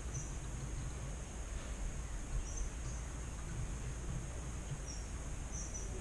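Quiet steady background: a low hum and hiss with a faint, steady high-pitched drone, and a few faint short chirps scattered through.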